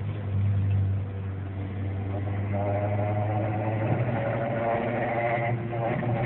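DSM car's engine running steadily with a low hum and a higher whine that comes in about halfway through, the odd noise that the owner calls weird.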